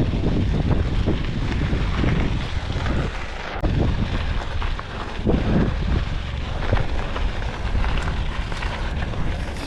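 Wind buffeting the microphone of an action camera on a moving bicycle: a steady, dense rush with a low rumble.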